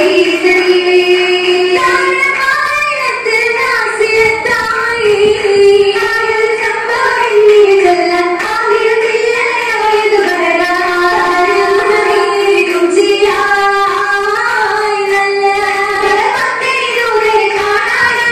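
Young female voices singing a Mappila song together for an Oppana dance, the melody gliding between long held notes.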